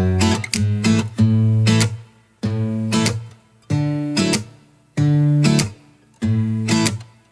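Background music: acoustic guitar strumming chords in a steady rhythm, with a new strum about every second and a quarter.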